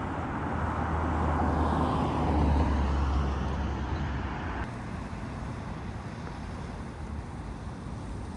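Road traffic: a vehicle's low engine rumble swells and then fades over a few seconds. After an abrupt change about four and a half seconds in, a quieter steady street hum remains.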